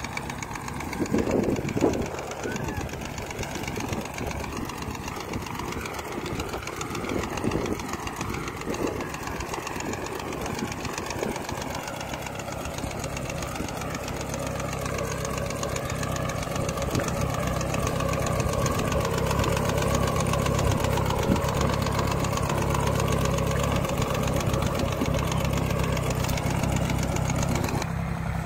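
Mini tractor's engine running steadily while it drives through the field powering a boom sprayer, growing louder in the second half as it comes closer.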